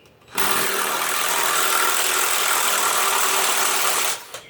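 Electric drill running steadily at full speed, backing out a stuck Torx-head screw. It starts about half a second in and stops suddenly just after four seconds.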